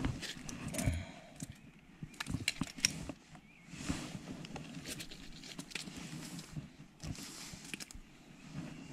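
Handling noise while a small fish is unhooked: a scatter of sharp clicks and rustles from the fish, line and unhooking tool, with a couple of short hissy stretches.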